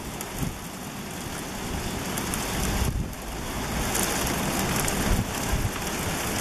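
Winter storm: hail and wet snow hissing and pattering in gusty wind, growing louder, with a brief lull about three seconds in.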